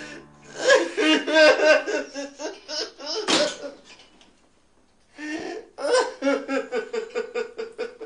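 A man's voice in convulsive, shaking outbursts of quick pulses, about four or five a second, in two runs with a pause of about a second near the middle.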